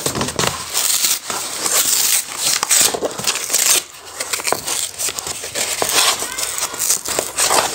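Parcel packaging, a plastic mailing wrap over cardboard, crinkling and tearing as it is forced open by hand, in a dense run of irregular crackles and rips. It is tough to get through.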